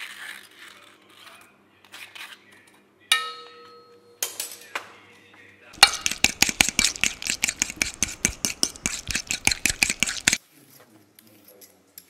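A metal utensil strikes a stainless steel bowl about three seconds in with a brief ringing clink, and clinks again a second later. Then avocado is mashed in the steel bowl: a fast, even run of taps and scrapes, about eight a second, lasting some four and a half seconds, followed by faint handling.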